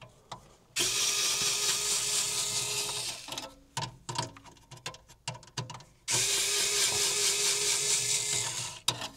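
Cordless power screwdriver running in two spells of about two seconds each as screws are backed out of an aircraft instrument panel, with a few clicks and short spurts of the motor between the spells.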